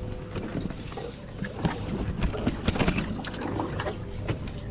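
Yamaha 300 outboard idling with a steady low hum, under water splashing and a scattered run of sharp clicks and knocks that is busiest in the middle.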